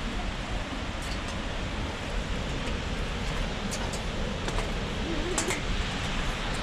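Steady rushing roar of a large waterfall, Skógafoss, with wind buffeting the microphone as a low, unsteady rumble.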